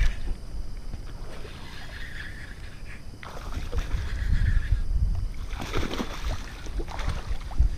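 A hooked bass splashing and thrashing at the water's surface, in two bouts about three and six seconds in, over wind rumbling on the microphone.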